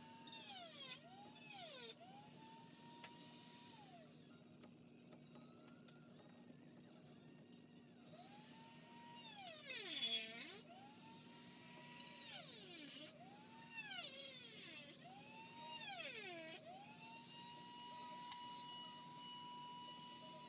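Dremel rotary tool running at high speed, spinning up and winding down again and again, with short loud bursts of harsh grinding as the bit cuts into the plastic blaster shell. Near the end it runs steadily for a few seconds.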